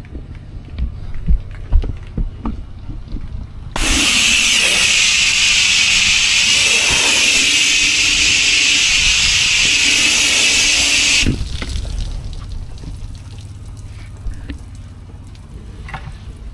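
Gas pressure washer with a Honda engine running steadily, its high-pressure water jet from an X-Jet nozzle hissing loudly when the trigger is pulled about four seconds in. The spray runs for about seven seconds and cuts off suddenly when the trigger is released, leaving the engine running.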